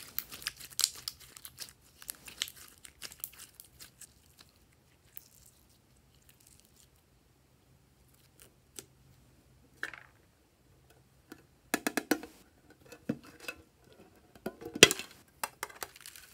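Sticky glossy slime being stretched and squeezed by hand, giving clusters of wet crackling clicks and pops. The clicks are dense for the first few seconds and turn sparse for a while, then come back in bursts, the loudest near the end.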